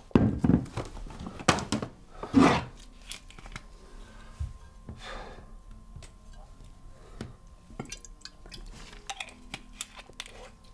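A glass bottle being handled on a dressing table: scattered small knocks and clinks, a few sharper ones in the first couple of seconds, over faint room hum.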